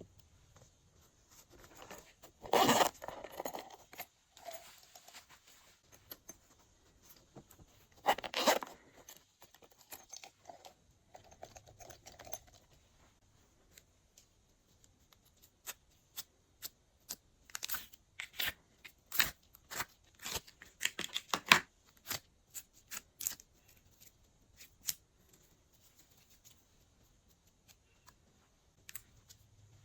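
Slime being handled and mixed: two loud tearing, peeling bursts, then a run of short sharp clicks and crackles.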